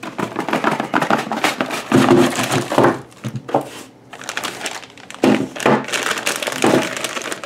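Cardboard box and plastic packaging being handled as an M12 battery and charger kit is unpacked: rustling and crinkling with a few dull knocks as the parts are set down.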